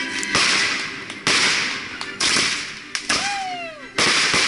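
Consumer aerial fireworks going off in quick succession: five sharp, loud reports about a second apart, each trailing off before the next.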